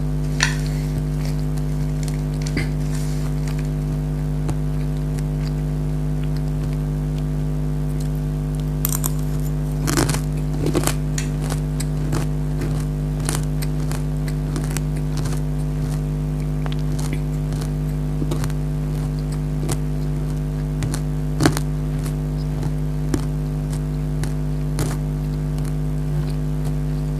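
Close-miked chewing of crunchy nimko, a fried snack mix, with many short crisp crunches scattered through, a cluster about ten seconds in and the sharpest crunch about two-thirds of the way in. A steady low hum runs underneath.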